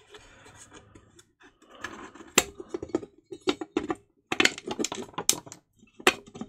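LED floodlight casing being handled and pried open by hand: an irregular string of sharp clicks and knocks as the front frame is worked away from the finned back casing.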